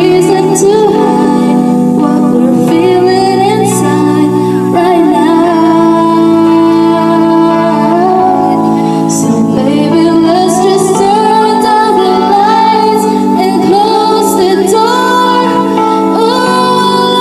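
A girl singing a slow melody into a handheld microphone, with long held notes, over a backing track of sustained chords that change every few seconds.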